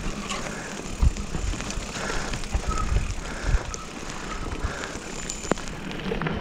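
Mountain bike riding down a wet dirt trail: steady tyre noise on the dirt, with scattered knocks and low thumps as the bike rattles over bumps.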